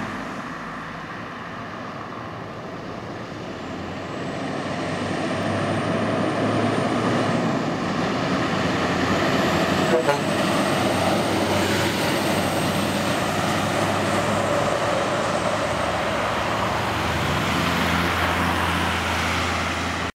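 Scania R560's 16-litre V8 diesel pulling a semi-trailer past on a street. It grows louder as it approaches, is loudest about halfway through with a brief click, and stays loud as it pulls away.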